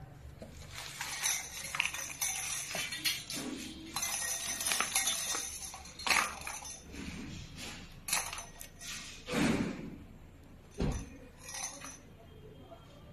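Handling noise from wiring work in a metal candelabra base: irregular rustling as bundled wires are pulled and sorted, with light clinks and knocks against the metal channel.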